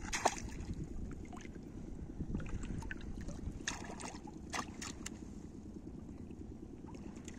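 Hooked snakehead thrashing and splashing in shallow water at a wading angler's legs: several short splashes, the sharpest just after the start, over a steady low rumble of wind on the microphone.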